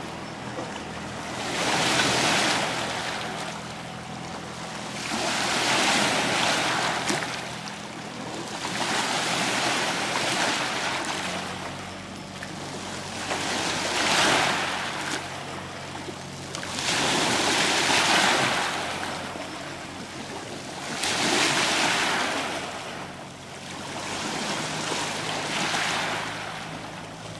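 Lake water washing against the shore in slow swells that rise and fall about every four seconds, over a faint steady low hum.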